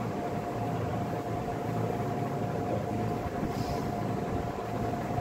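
Steady background noise: a low hum with a faint constant whine above it.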